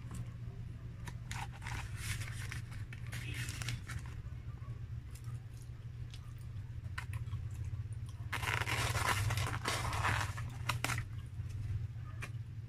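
Close-up eating: chewing of fried food with small crunches and mouth clicks, then a couple of seconds of louder scraping and crackling as a styrofoam clamshell food box is pried open. A steady low hum runs underneath.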